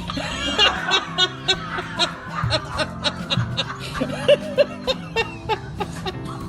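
A person chuckling and laughing in short bursts over background music with held notes and a steady beat.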